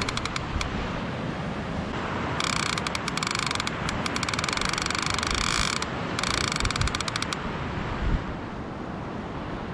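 Fishing reel's clicker ratcheting very rapidly in spurts: briefly at the start, then a long run of about three seconds and a shorter one just after, over a low rushing background. It sounds while a rod is taking bites that act like a small shark.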